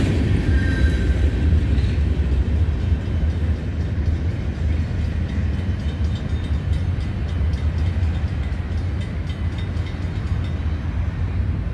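Steady low rumble of a CSX freight train moving away just after its last car clears the crossing, fading slightly.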